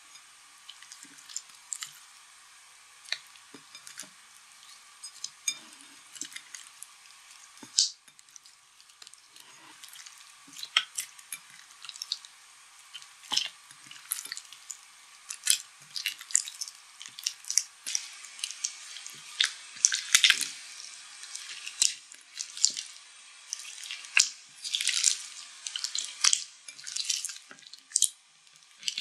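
Foamy slime being kneaded and squeezed by hand in a glass bowl: wet, sticky popping and squelching clicks, sparse at first and coming thick and fast from about halfway in.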